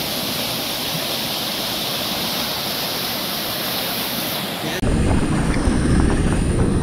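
Floodwater rushing over a low concrete check dam across a stream: a steady roar of white water. A little before five seconds in, the sound cuts abruptly to louder low wind rumble on the microphone over the rushing water.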